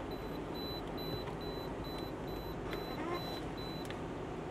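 Steady low hum of an idling car heard inside the cabin, with a faint high beeping about twice a second from an RD9300 radiation detector's alarm. Near the end there is a small click and the beeping stops.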